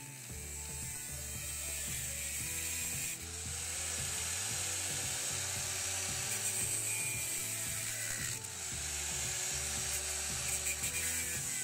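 Angle grinder grinding steel on a car's rusted floor pan, a steady high-pitched hiss that briefly eases off twice.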